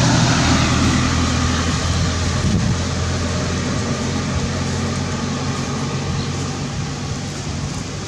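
An engine running steadily: a low hum under a broad rushing noise, slowly getting quieter.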